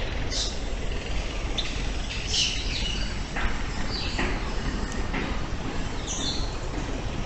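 Several birds in a walk-through aviary giving short, scattered chirps and calls, about half a dozen over a few seconds. Underneath them is a steady low background rumble.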